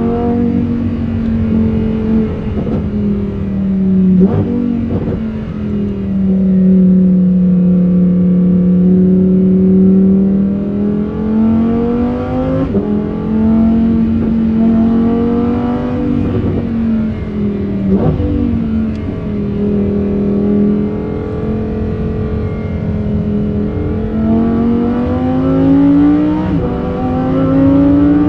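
Lamborghini Huracán Performante's V10 engine with its stock exhaust, accelerating hard on a race track: the pitch climbs steadily and then drops abruptly at each gear change, several times over.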